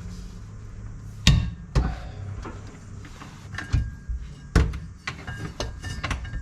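Hand tools clanking and knocking on metal under a car while tight drive-shaft bolts are worked loose: a string of sharp metallic knocks, the loudest about a second in and again past the middle.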